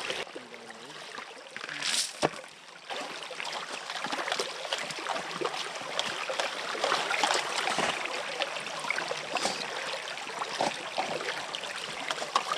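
Small creek water running and trickling, growing louder about three seconds in, with a couple of sharp knocks about two seconds in.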